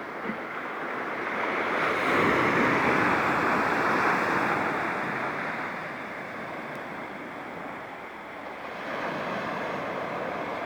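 Waves washing on a shore: a steady rushing noise that swells about two seconds in, eases, and swells again near the end.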